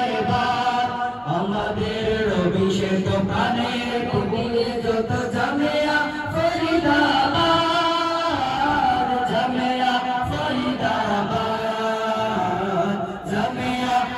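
A group of boys singing an Islamic tarana together into handheld microphones, their voices holding long sustained notes.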